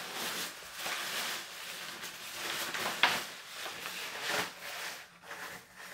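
Thin nylon raincoat fabric rustling and crinkling as it is handled and spread out by hand, with a couple of sharper crackles partway through.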